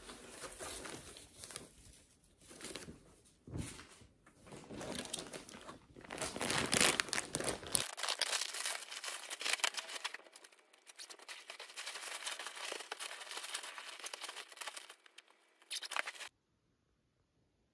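Quiet crinkling and rustling of a thin plastic packaging bag being opened and handled, with some rustle of the cotton cushion covers, in irregular bursts that stop about 16 seconds in.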